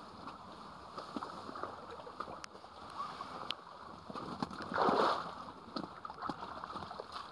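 Light rain pattering on the camera as scattered irregular ticks over a steady outdoor hiss, with a louder rustle about five seconds in as waterproof clothing and tackle bags are handled close by.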